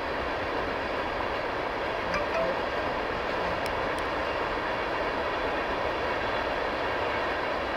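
Freight train of tank cars rolling past, a steady noise of wheels running on the rails.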